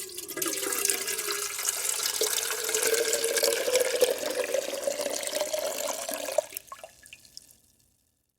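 Water poured into a glass in a steady stream. The pitch rises as the glass fills, then the pour stops about six and a half seconds in and a few last drips follow.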